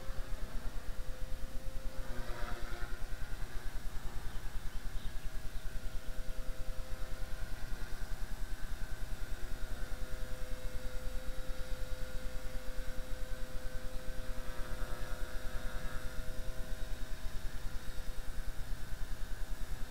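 Blade 300X electric RC helicopter in flight, its motor and rotor giving a steady whine that holds one pitch.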